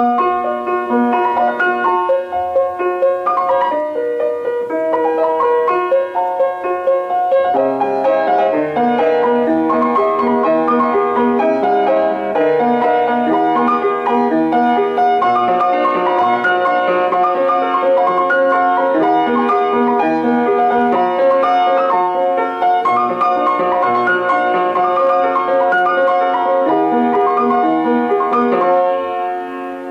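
Piano music playing notes over repeated broken chords, growing fuller with lower notes joining about seven or eight seconds in.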